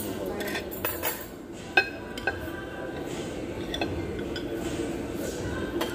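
Dishes and cutlery clinking at a dining table as rice is turned out of a bowl onto a plate: scattered light clinks, the loudest about two seconds in.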